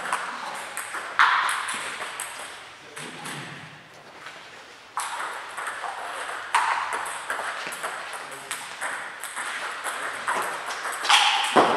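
Table tennis ball clicking back and forth between rubber-faced paddles and the table during a rally, a quick run of sharp ticks with a few louder hits.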